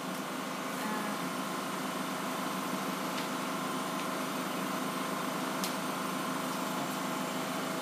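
Steady background hum and hiss with a few constant tones in it, and a couple of faint ticks.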